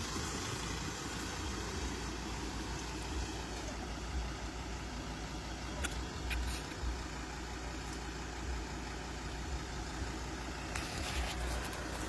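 Four-wheel-drive vehicle engine running steadily at low revs, a low rumble, with a few sharp clicks about six seconds in and again near the end.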